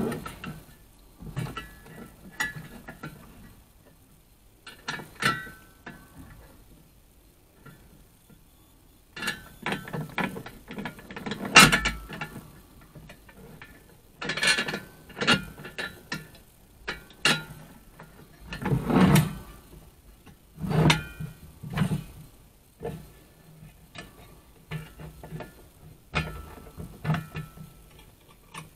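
Hands working the steel spring hinge mechanism of a lift-top coffee table: irregular clinks, knocks and scrapes of metal on metal as a screw is worked through the coils of its spring. The loudest knocks come about twelve and nineteen seconds in.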